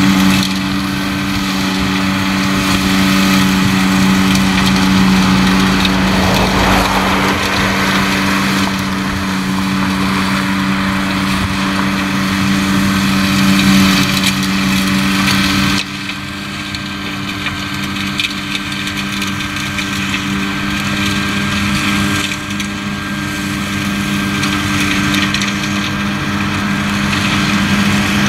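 Tractor engine running steadily at working speed, driving a flail mulcher whose spinning flails shred weeds and pumpkin vines with a constant hum and a dense chopping, crunching noise. The sound drops a little in level about halfway through.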